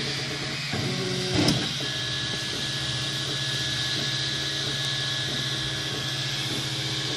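3D printer running: a steady hum from its cooling fans, with stepper motors whining in short steady tones that change pitch as the print head moves. A brief knock comes about a second and a half in.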